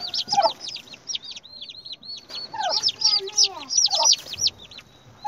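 Turkey poults peeping, a rapid run of short high-pitched arched chirps, stressed as they are handled and taken from the hen. A few lower, falling calls come in about halfway through.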